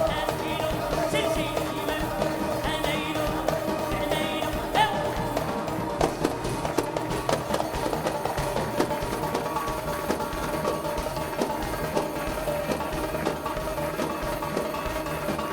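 Live band playing an instrumental passage of Arabic music: a wavering, ornamented melody over held notes for the first few seconds, then percussion strikes under the sustained notes.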